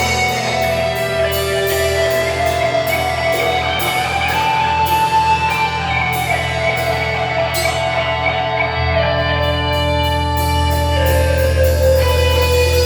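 Rock music: a sustained, sliding lead-guitar melody over a steady drum beat and bass. The low end grows heavier about nine seconds in.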